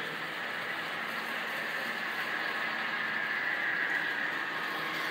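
Several model trains running on their track: a steady whir of small locomotive motors and wheels rolling on rail, growing a little louder near the end.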